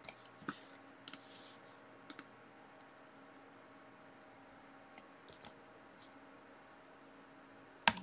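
Scattered clicks and keystrokes at a computer keyboard: a few in the first two seconds, a few faint ones around five seconds in, and one sharp keystroke near the end, over a faint steady hum.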